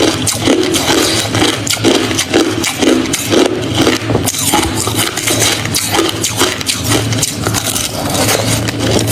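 Close-miked chewing of hard crushed ice: dense, rapid crunches, several a second, with a low rumble from the jaw under them.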